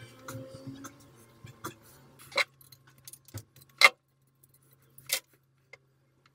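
Metal tools and fittings clinking as they are handled: a scatter of light clicks and three sharper clinks about a second and a half apart, over a faint low hum that stops near the end.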